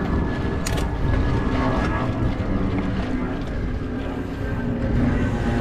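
Mountain bike riding over a dirt trail: a steady low rumble of wind and tyre noise on a camera riding along, with a short rattle of clicks just under a second in.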